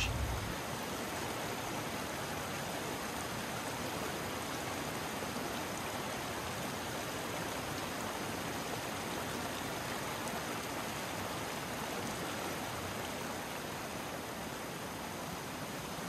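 Creek water rushing steadily over rocks, a constant even hiss.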